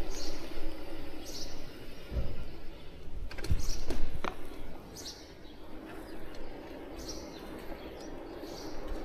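Small songbirds chirping in short high calls every second or so, over a steady low rumble of movement with a few thumps between about two and four seconds in.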